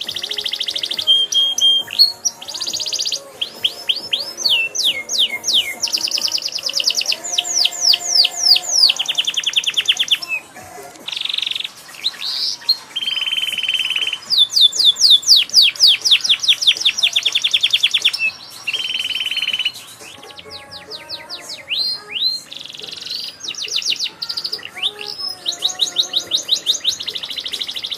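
Domestic canary singing at length: a varied song of fast trills, rapid runs of repeated notes and sweeping slurs, changing phrase every second or two, with brief pauses about ten and twenty seconds in.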